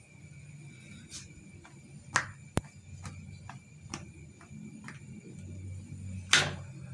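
Irregular light clicks and a few sharper knocks from a cast-iron tawa being wiped with a cloth on a gas stove, the pan shifting on the burner grate, over a soft low hum.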